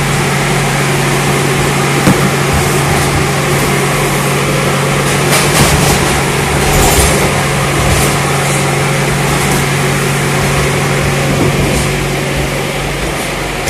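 Steady, loud drone of a running machine with a low hum, heard inside a steel shipping container. A few short knocks of cardboard cartons being handled sound over it.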